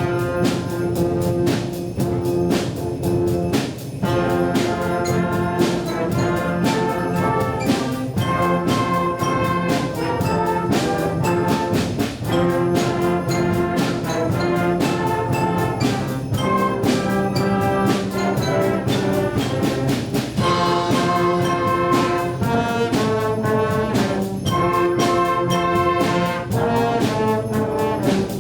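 A student band playing a holiday song, led by brass with held chords over a steady percussion beat.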